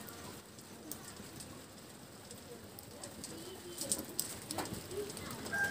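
Low crackle of a wood fire burning under a lidded frying pan, with a few sharp pops about four seconds in. A dove coos faintly in the background, and a rooster starts to crow right at the end.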